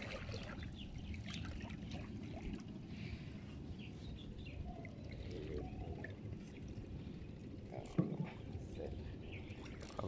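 Shallow river water trickling and splashing softly as a wet fishing net is handled and small fish are picked out of its mesh, with one sharp knock about eight seconds in.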